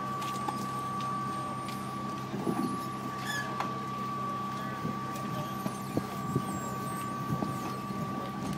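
Mini excavator's diesel engine running steadily, with scattered knocks and clatter.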